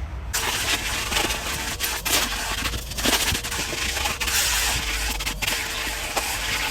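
Henry cylinder vacuum cleaner running, switched on abruptly just after the start, with a steady motor whine and the nozzle scraping and sucking at the car's interior.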